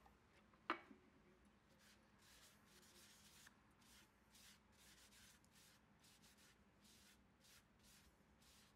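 Faint, irregular scratchy strokes, something rubbed over a surface by hand, with one sharp tap about a second in.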